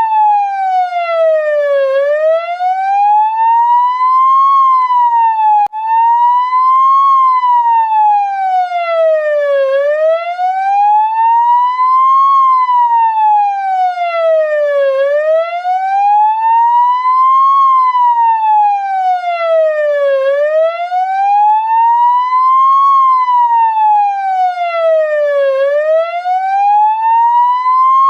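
Ambulance siren in a slow wail, its pitch rising and falling smoothly about every five seconds. Near six seconds in it cuts out for an instant and the sweep starts again.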